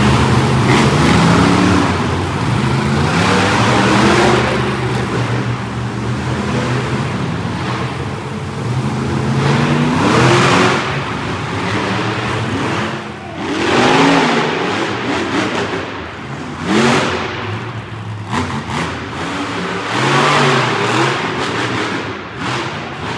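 Monster truck engines revving in repeated bursts, the pitch climbing and dropping about half a dozen times as the trucks drive on the arena's dirt floor.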